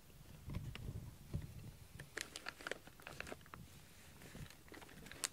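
Blanket fabric rustling and a run of light taps and clicks as a cat climbs out of a blanket and steps down onto a foam floor mat, the sharpest click near the end.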